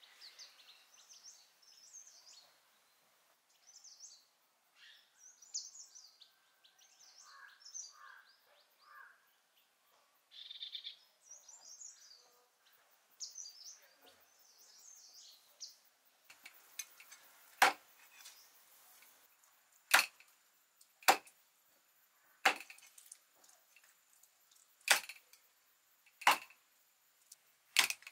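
Small birds chirping in short phrases through the first half. From about halfway on, a steel cleaver chops bone-in mutton breast pieces on a wooden board: about seven sharp, loud strikes, one every second or so.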